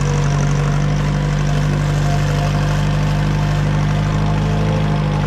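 Small compact tractor's diesel engine running at a steady, even speed while the tractor is driven slowly.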